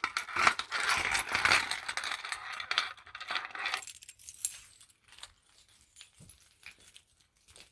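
Small metal parts clinking and rattling as they are handled: dense jingling for about four seconds, then a few scattered clicks.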